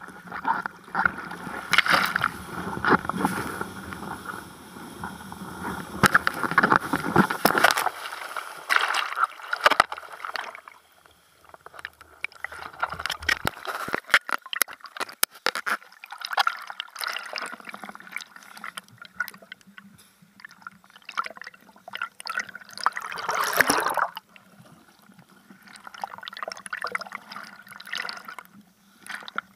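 Seawater splashing, sloshing and gurgling around a camera at water level on a bodyboard as whitewater washes over it, loudest in the first eight seconds and again briefly about 23 seconds in.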